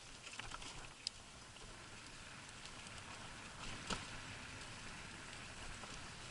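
Tyre noise of an electric scooter rolling over a wet, muddy dirt track: a faint steady hiss full of small crackles, with two sharp clicks, about a second in and about four seconds in.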